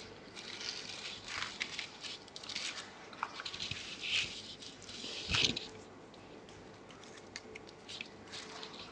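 Palm-fibre rope rasping and rustling against a bundle of dry reeds as it is wrapped and pulled tight to lash the bundle, a run of faint scratchy rustles with the loudest about five seconds in.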